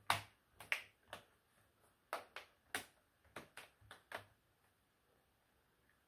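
Plastic bottom cover of an MSI Thin A15 laptop being pressed down onto the chassis, its clips snapping into place in a run of about a dozen sharp clicks over the first four seconds.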